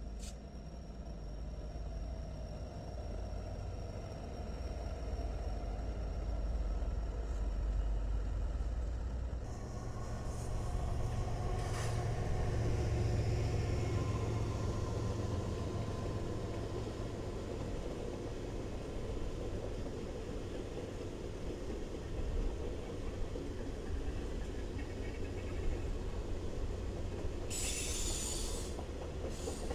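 A string of BNSF diesel locomotives rolling past close by: a steady low engine rumble with the sound of wheels on the rails. A short hiss comes near the end.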